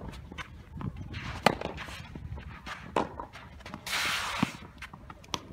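Tennis rally: sharp pops of racket on ball, the loudest about one and a half seconds in and another about three seconds in, among lighter shoe taps. About four seconds in comes a half-second gritty scrape as a player lunges and slides on the sand-filled artificial grass court.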